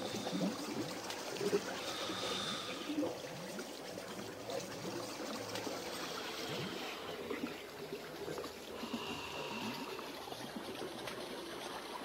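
Trickling, bubbling water like a small stream, with a few faint drawn-out high tones coming and going: the ambient close of a downtempo electronic track.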